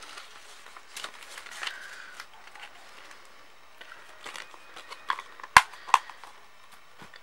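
Handling noise of DVD packaging: soft rustling and scrapes, then a few sharp plastic clicks and knocks in the second half.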